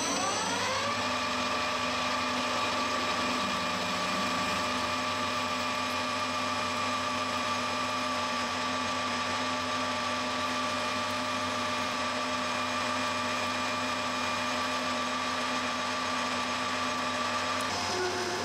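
Metal lathe spinning up, its whine rising over the first second, then running at a steady pitch while a twist drill in the tailstock bores into an aluminium block held in the four-jaw chuck. The pitch steps down shortly before the end.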